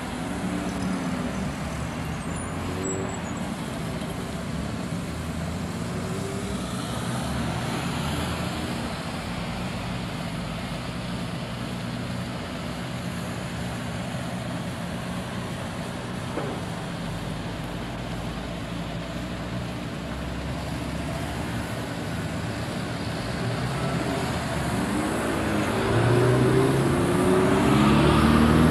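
Car engine running with road and tyre noise, heard from inside a moving car, steady for most of the time. Near the end the engine note climbs and grows louder as the car accelerates.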